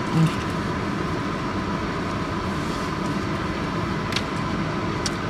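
Steady hum inside a parked car's cabin, with the car's engine and air-conditioning fan running. A short hum of a voice comes just after the start, and a couple of faint clicks near the end.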